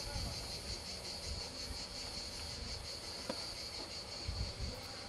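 Cicadas droning steadily in a high, slightly pulsing buzz, with irregular low rumbling on the microphone.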